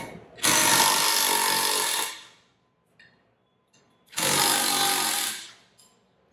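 Cordless impact driver hammering loose 1/4-inch Allen bolts on a metal pump's centre section, in two bursts of about a second and a half each, the second starting about four seconds in.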